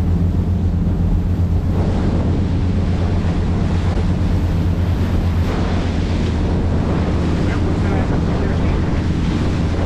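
Charter fishing boat's engine running with a steady low drone, with wind buffeting the microphone and water rushing past the hull.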